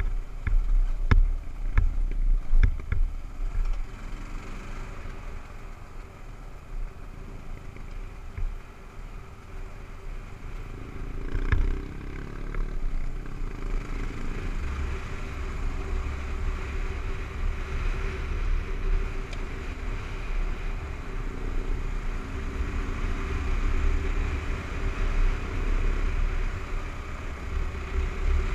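Kawasaki KLR 650's single-cylinder four-stroke engine running steadily as the bike rides a gravel dirt road, with a low rumble underneath. A few sharp knocks come in the first few seconds and once more about twelve seconds in, and the engine grows louder in the second half.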